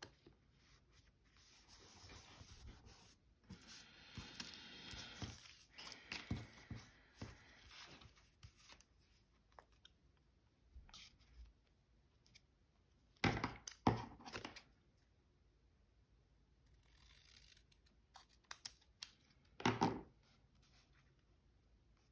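Paper stickers being peeled from their backing and handled, a papery rustle and peel for the first several seconds. Then come a few sharp taps as they are pressed down onto the journal pages: a pair about halfway through and another near the end.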